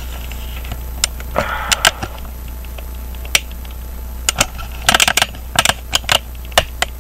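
Irregular sharp clicks and knocks of a camera tripod being handled and readjusted, with a short scrape about one and a half seconds in and a quick cluster of clicks about five seconds in, over a steady low hum.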